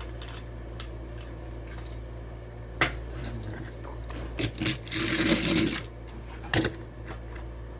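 Sharp clicks and a short crackling rustle of a toy car's plastic blister packaging being pried and pulled open by hand, over a steady low hum.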